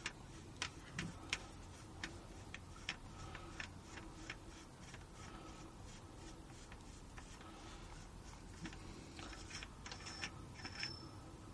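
Faint, irregularly spaced light clicks and ticks of metal parts being handled as the valve end is unscrewed by hand from a PCP air rifle's air cylinder.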